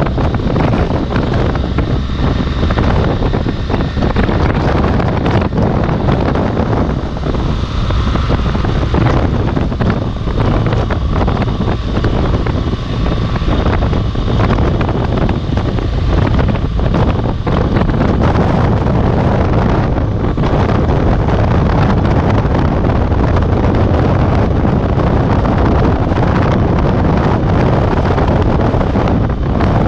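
Wind buffeting the microphone over the steady running of a BMW R1200GS motorcycle's flat-twin engine and its tyres on a dirt road, while riding at steady speed.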